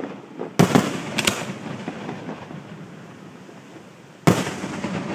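Aerial firework shells bursting: a quick run of four sharp bangs about half a second in, a rumble carrying on after them, and another loud bang near the end.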